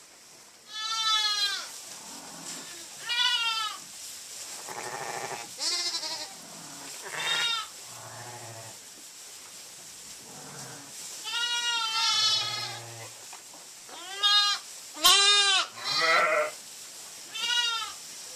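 Sheep, ewes and young lambs, bleating over and over: about a dozen short, quavering calls, most high-pitched and a few lower. The loudest comes about fifteen seconds in.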